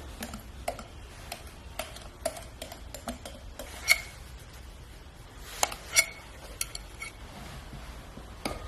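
A utensil tapping and scraping against a bowl while cake batter is mixed, a scatter of light clicks with a few sharper clinks that ring briefly, the loudest about four and six seconds in.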